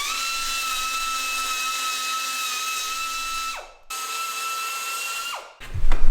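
Small high-speed power tool running with a steady high whine, dipping in pitch briefly as it takes load; it is switched off and spins down, runs again, then spins down a second time. A loud handling clatter follows right at the end.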